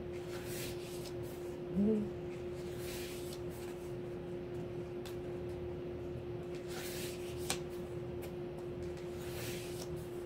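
Pages of a K-pop album photobook being turned by hand, about four soft paper swishes, over a steady hum. A brief 'mm' from a voice about two seconds in, and a light tick later on.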